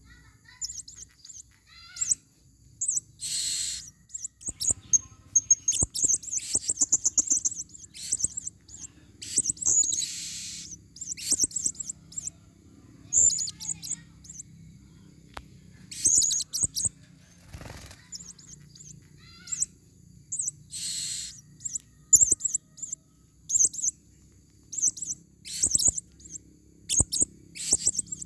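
Female blue-crowned hanging parrots (serindit) calling: bursts of shrill, very high-pitched chirps, with a few longer, harsher screeches mixed in.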